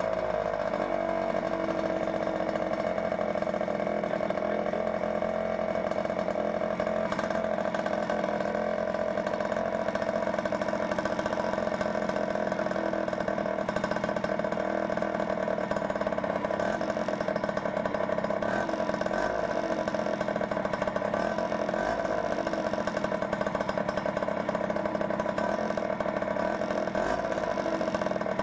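Derbi FDS two-stroke single-cylinder engine, bored out with a Metrakit 90cc kit, idling steadily with an even, unchanging pitch.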